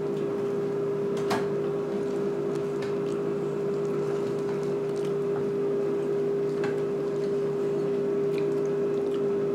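Steady hum of a running kitchen appliance, one constant mid-low tone with weaker lower tones beneath it, and a faint click about a second and a half in.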